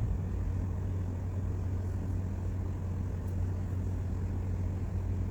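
Steady low background hum with a faint even hiss, unchanging throughout.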